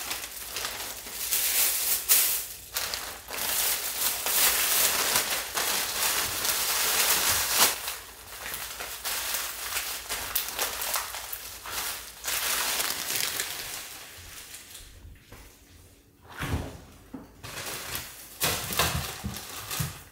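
Plastic bags crinkling and rustling in irregular bursts as bagged raw pork belly is packed into a zipper bag. In the last few seconds the crinkling stops and a few low thumps follow.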